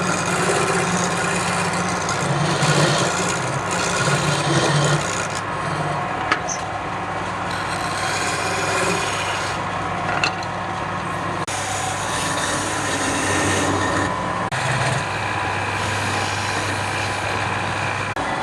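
Wood being worked on a running wood lathe: a steady motor hum under a continuous rasping rub against the spinning wood, with two sharp ticks about six and ten seconds in.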